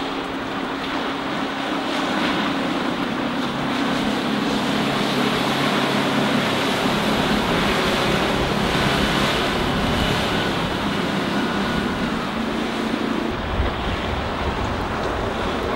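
Volvo Penta KAD32 diesel sterndrive of a cabin cruiser running at speed past the bank, a steady engine drone over the rush of the hull and wake. About thirteen seconds in the engine tone drops away and wind buffets the microphone.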